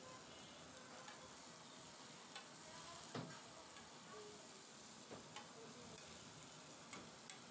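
Minced kebab meat sizzling on a large flat griddle, a faint steady hiss, with a few sharp clicks; the loudest comes about three seconds in.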